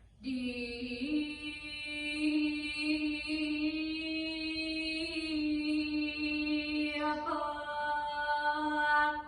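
A solo voice chanting a Sanskrit sloka in Balinese dharma gita style, holding long, steady notes. The pitch changes about a second in and again near seven seconds.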